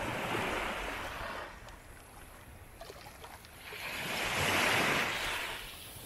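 Sea waves washing in, in two surges of surf noise: one at the start that eases off about a second and a half in, and a louder one that builds from about three and a half seconds in and fades near the end.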